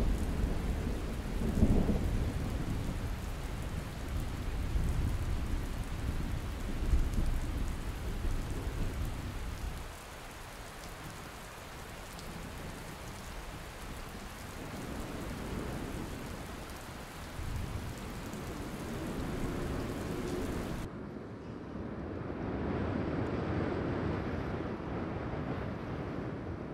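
Thunderstorm: steady rain with thunder rumbling, loudest in the first ten seconds with two stronger peals, then easing off. About 21 s in the sound changes abruptly to a duller, muffled swell.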